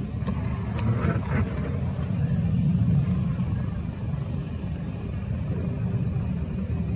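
Distant jet engines of an Airbus A320-family airliner at takeoff thrust during the takeoff roll: a steady low rumble.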